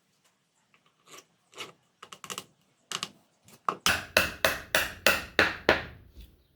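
Hammer knocks: a few light scattered taps, then a run of about seven hard strikes, roughly three a second, past the middle.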